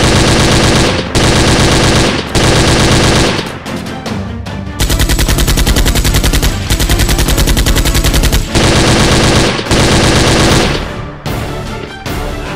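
Automatic gunfire sound effects dubbed over a toy-blaster firefight: repeated bursts of rapid shots, the middle ones longer with a fast steady rhythm, over background music.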